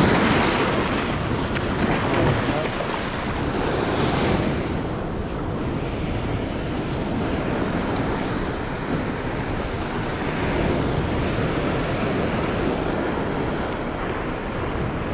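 Sea surf breaking and washing over boulders on a rocky shore, loudest at the start and again about four seconds in. Wind buffets the microphone.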